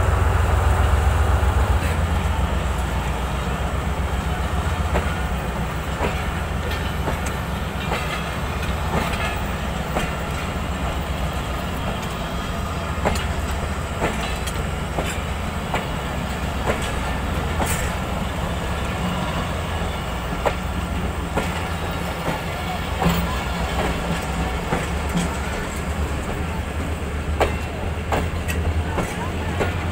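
Pakistan Railways passenger coaches of the Allama Iqbal Express rolling past on the track: a steady low rumble with irregular clacks of wheels over the rail joints.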